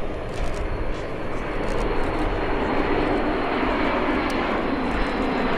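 Jet engines of large four-engine military aircraft, a KC-135 tanker and a C-17 transport, flying overhead: a steady rushing engine noise with a deep rumble.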